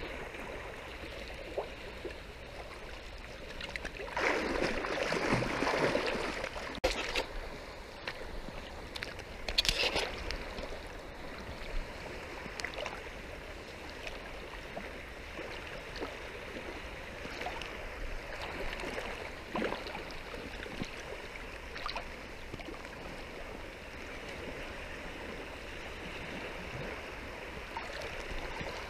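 Shallow seawater sloshing and lapping as it is waded through and stirred up. There is a louder stretch of splashing about four to six seconds in, and a brief splash near ten seconds.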